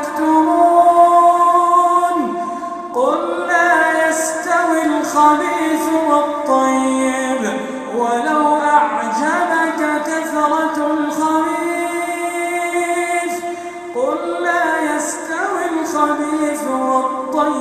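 A man chanting Quranic verses in slow, melodic tajweed recitation, holding long notes that slide in pitch, with new phrases starting about three, eight and a half and fourteen and a half seconds in.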